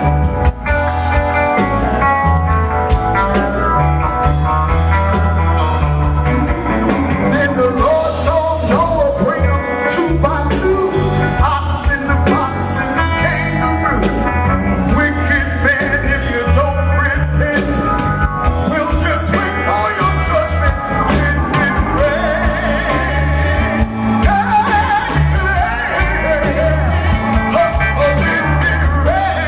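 A live blues band playing with a heavy, pulsing bass. Steady held instrument notes give way to a singer's voice about seven seconds in.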